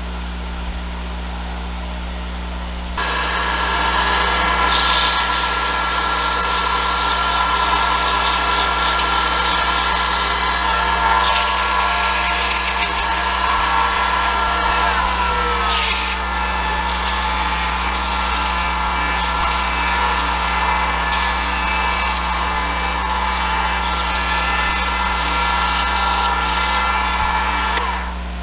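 Wood lathe motor running with a steady hum; about three seconds in, sandpaper pressed against the spinning aromatic cedar spindle adds a loud hiss with a steady whine, which dips slightly in pitch about halfway through and stops shortly before the end.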